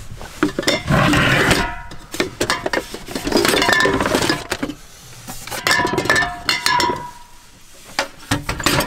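Hard objects clinking and clattering in a wooden storage crate as it is rummaged through, in three bursts with short metallic rings, then a few lighter knocks near the end.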